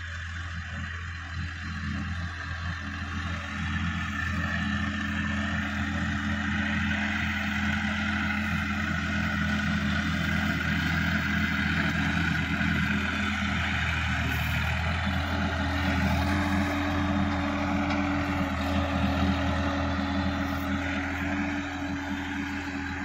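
Sonalika DI-50 RX tractor's diesel engine running steadily under load while pulling a tillage implement through a field, growing louder as it comes closer. Its note shifts about two-thirds of the way in.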